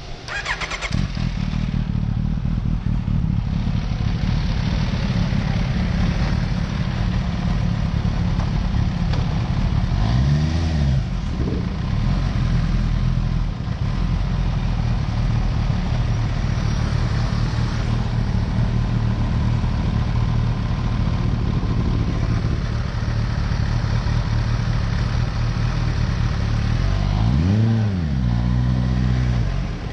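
Kawasaki Ninja H2's supercharged inline-four starting up about a second in, then running steadily. Its revs rise and fall sharply twice, about a third of the way in and again near the end.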